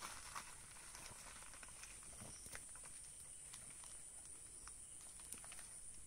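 Faint rustling of a sack and scattered soft clicks as hands sort wild mushrooms, over a steady high hiss.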